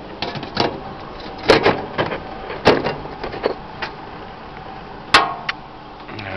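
Lid being put back on a 200-litre drum sawdust gasifier: a series of sharp knocks and clanks, the loudest about five seconds in.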